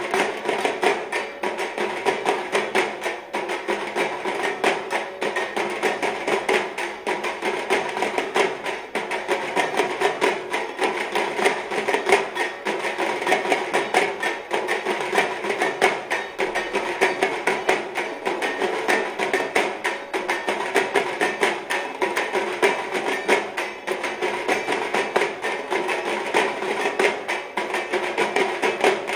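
Music driven by fast, even percussion strokes over steady held tones, keeping the same pace and loudness throughout.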